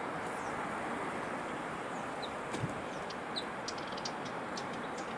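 Steady outdoor wind-and-water noise on an open shore, with a few faint, short high bird chirps and ticks scattered through the second half.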